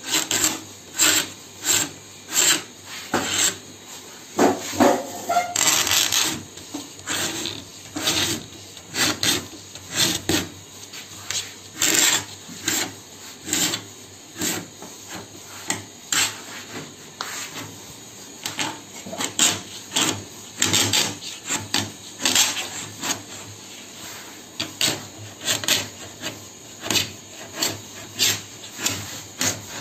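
V-sharpened needle of a homemade circle cutter scratching into a 0.8 mm sunmica laminate sheet, scoring a circle in a long run of short, repeated scratching strokes.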